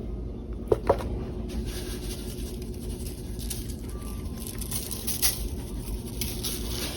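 Garlic salt being shaken from a shaker onto raw ribs, the grains lightly pattering, with a couple of small clicks about a second in, over a steady low hum.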